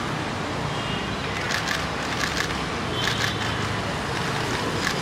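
Street ambience: a steady hiss of road traffic with a few short clicks scattered through it.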